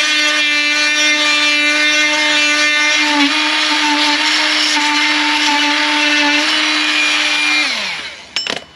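Oscillating multi-tool cutting through black plastic soil pipe as the pipe is turned against the blade: a steady, high buzz that falls in pitch and stops as the tool is switched off near the end, followed by a couple of light knocks.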